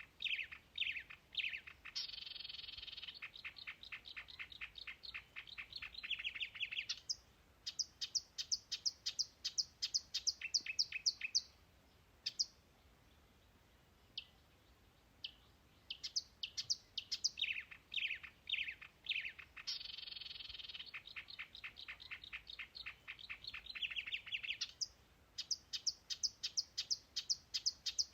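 Bird singing fast, high trills of short chirps in long bursts, with a few seconds of only scattered single chirps about halfway through.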